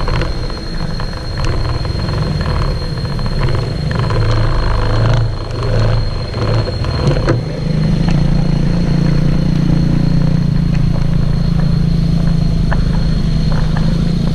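A motor vehicle engine running close by: an uneven low rumble with a few clicks for the first half, then from about halfway through a steady, loud engine hum that holds to the end.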